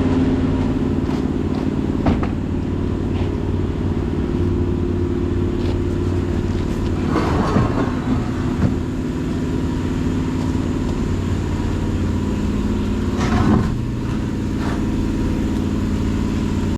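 Engine of a farm machine running steadily at a constant speed, with two brief louder noisy surges, about seven and thirteen seconds in.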